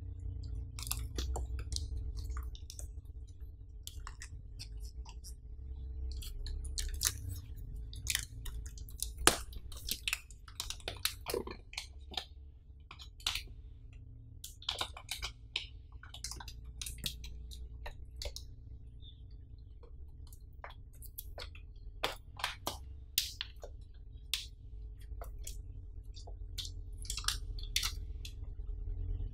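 Hands handling a MacBook Air laptop in its clear protective plastic film: scattered crinkles and light clicks of the plastic, some sharper than others, over a low steady background hum.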